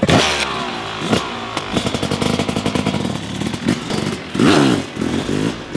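Yamaha YZ250 two-stroke dirt bike engine revving: a sharp rev at the start, a short blip about a second in, and a bigger rev that rises and falls about four and a half seconds in.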